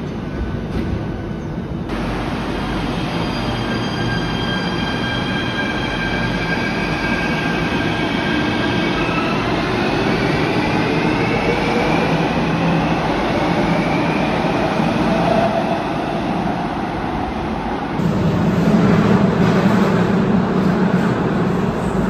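Athens Metro 3rd-generation electric train moving through an underground station: a high electric whine with several tones gliding in pitch over the rumble of wheels on rail. About 18 s in, it gives way to a louder, deeper rumble of the train riding, heard from inside the car.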